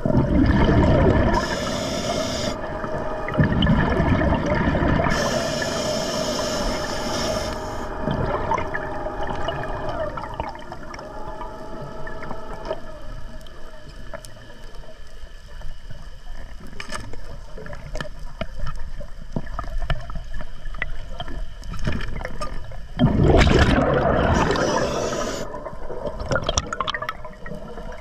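Scuba diver breathing underwater through an Atomic regulator: each exhalation is a burst of rushing bubbles and each inhalation a hiss through the regulator. There are two breaths near the start, a long quieter stretch of faint bubbling and clicks, and one more breath near the end, with a steady hum under the first part.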